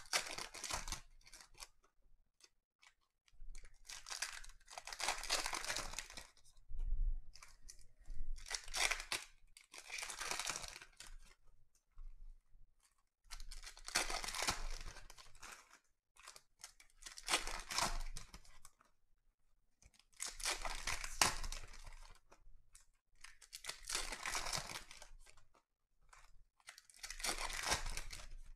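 Foil trading-card packs torn open one after another, the wrappers crinkling as the cards are pulled out and handled, in a burst of tearing and rustling every two to three seconds.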